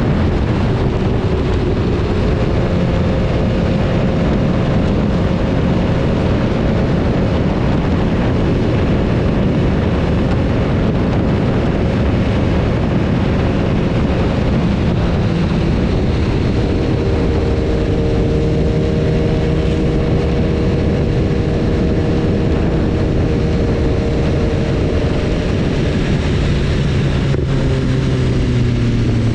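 BMW S1000RR's inline-four engine running at a fairly steady speed while riding, over a steady rush of wind and road noise. The engine note shifts pitch about halfway through and again near the end.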